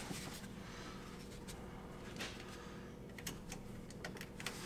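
Faint, scattered light clicks and short rustles from hands working on wiring and parts inside a car door, over a steady low hum.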